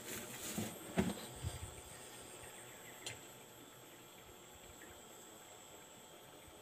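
Insects trilling steadily at a high pitch from the riverside forest. A few soft knocks and a rustle come near the start, and a single click about three seconds in.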